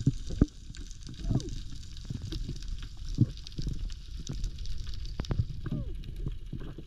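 Underwater sound on a coral reef, heard through the camera: scattered sharp clicks and crackling over a low rumble. Two short falling squeaks come through, one about a second in and one about six seconds in.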